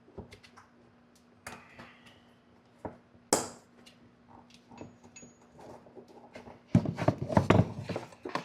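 Scattered clicks and knocks of hand tools and plastic parts being handled as a watercraft speaker pod is taken apart. There is one sharp knock about three seconds in, and a dense burst of rattling clatter near the end.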